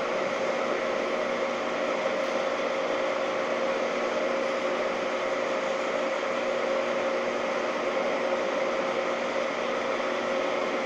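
Holzmann ED 1000 metal lathe running steadily at 770 rpm, turning a long steel bar: an even machine hiss with one constant tone held throughout.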